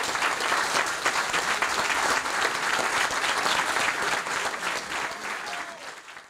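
Audience applauding: a dense round of many people clapping that fades out near the end.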